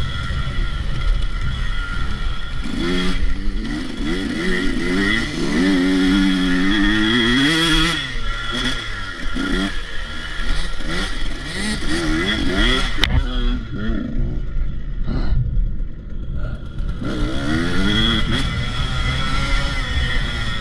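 Motocross dirt bike engine revving hard and rising and falling in pitch as the rider works the throttle through turns. About two-thirds of the way through it eases off for a couple of seconds, then revs up again.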